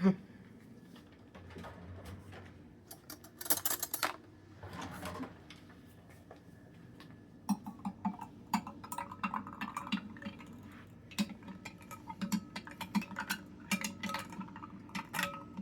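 A spoon stirring a glass of soda, clinking against the side. The clinks start as a few scattered knocks, then become a quick run of about two to three a second from the middle on.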